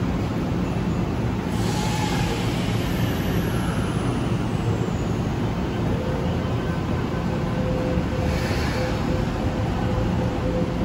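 A Kintetsu limited-express electric train pulling out of the station: a steady low rumble and hum, with two short hisses, one about two seconds in and one near nine seconds, and a steady whine that starts about six seconds in.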